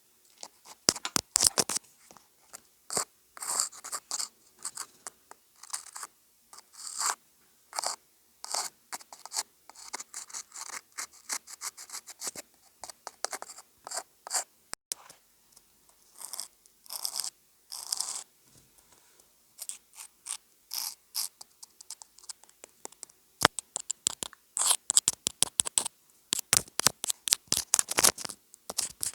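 Close-up ASMR scratching and scraping on a homemade ASMR prop: short crisp strokes in irregular clusters, with a quieter lull past the middle and then faster, denser strokes toward the end.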